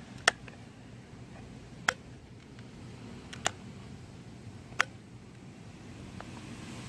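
Four sharp clicks, about one and a half seconds apart, over a faint low steady hum.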